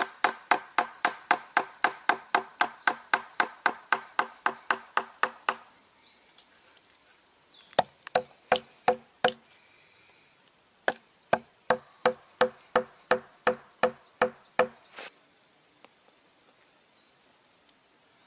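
Wooden mallet striking a wood chisel, chopping tea-light recesses into a round of log: quick, even blows about four a second, then after a pause two shorter runs of strikes.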